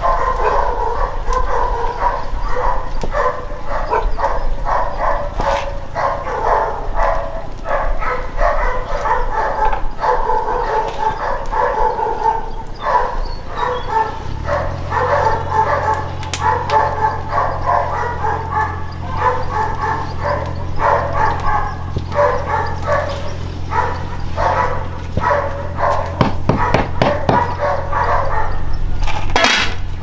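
Dogs barking and yelping over and over, many short calls close together. A low steady hum sets in about halfway. A few sharp metallic knocks come near the end as a lid goes onto the cooking pot.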